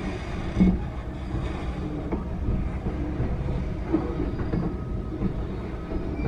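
Freight train of hopper cars rolling past a grade crossing: a steady rumble of steel wheels on rail, with a few short clanks from the cars.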